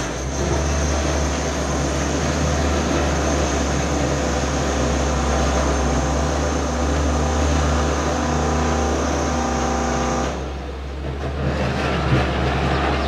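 Jet engines of a taxiing Boeing 777 freighter running at low power: a steady rumble with a high whine. The sound drops and thins about ten seconds in.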